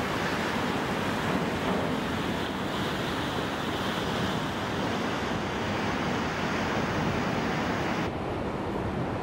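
Ocean waves breaking and whitewater rushing, a steady roar of surf mixed with wind on the microphone. About eight seconds in the sound abruptly turns duller and a little quieter.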